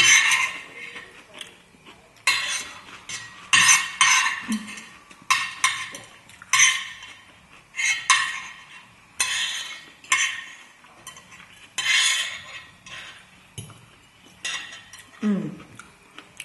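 Metal fork scraping and clinking across a rectangular serving plate in repeated short strokes, about one a second, gathering the last scraps of food.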